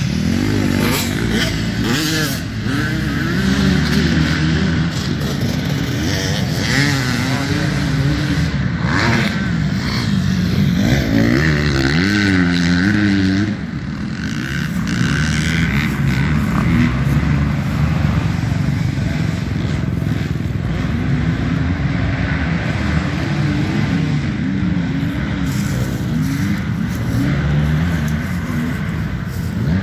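Dirt bike engine revving up and down over and over, its pitch climbing sharply about twelve seconds in before briefly dropping off.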